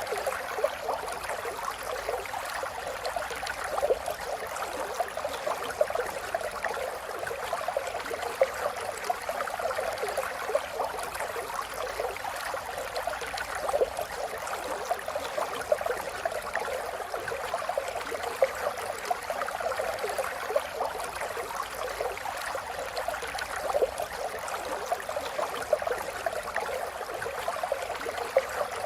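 A river flowing, with steady babbling and splashing of water over stones.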